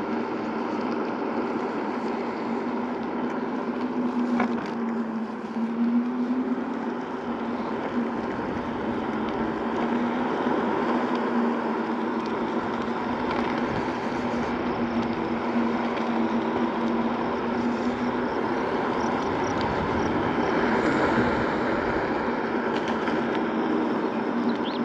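Segway Ninebot Max G2 electric scooter riding along a paved path: steady rolling noise from the tyres, with a low hum that wavers a little in pitch as the speed changes, and some wind on the microphone.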